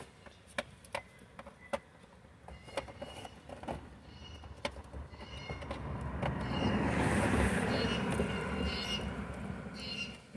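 Small plastic clicks and knocks as the wiring plugs are pushed into the back of a Honda Element's instrument cluster. From about halfway in, a passing vehicle's rumble swells up, becomes the loudest sound, and fades away near the end.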